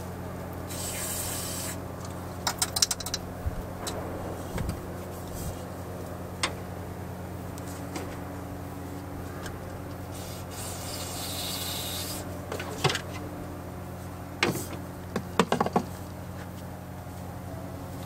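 Aerosol electronic contact cleaner sprayed in two short hissing bursts into fuel injector wiring connectors, about a second in and again near the middle, to clean the plugs against a misfire. Scattered sharp clicks of the connectors and can being handled come between and after the bursts.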